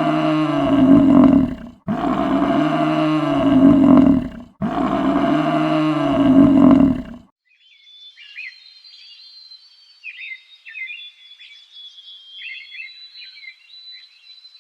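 A large animal's roaring call, the same call heard three times back to back. About seven seconds in it gives way to faint high chirping.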